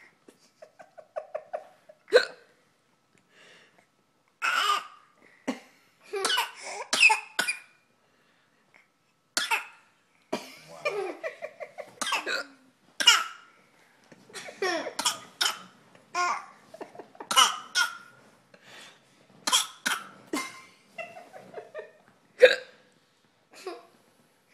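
A five-month-old baby making repeated short fake coughs, with laughter and babbling between them.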